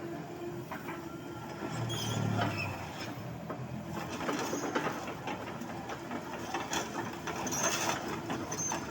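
Caterpillar 307.5 mini excavator running, its engine and hydraulic pump working, with a steady hum and scattered clanks and knocks from the machine. A brief low rumble comes about two seconds in.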